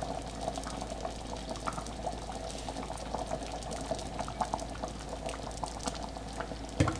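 Thick curry simmering on low heat, its bubbles popping irregularly, with a single knock near the end.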